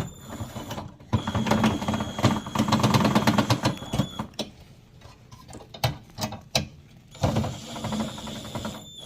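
Screwdriver tightening the TV stand's bracket screws, a run of rapid ratcheting clicks. There are two spells of it, from about a second in and again in the last two seconds, with a few single clicks in between.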